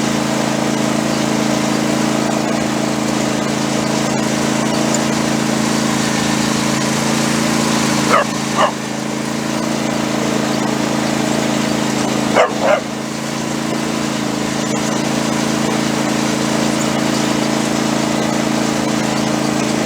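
A dog barks twice in quick pairs, about 8 and 12 seconds in, over a small engine running steadily.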